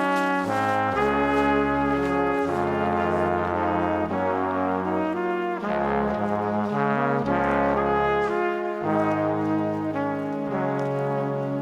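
Background music: held melody notes changing every second or so over a stepping bass line.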